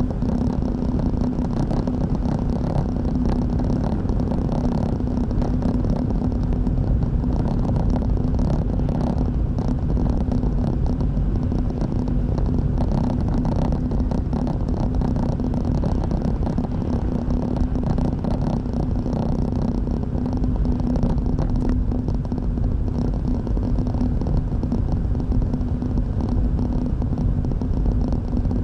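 Car driving at steady speed, heard inside the cabin: continuous tyre and road rumble with a steady low engine hum.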